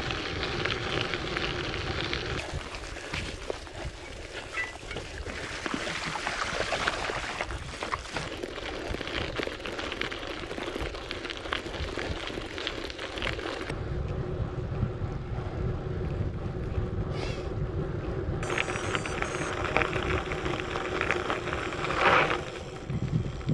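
Canyon Grizl gravel bike's tyres rolling and crackling over a gravel track, with wind buffeting the microphone; the sound changes abruptly several times.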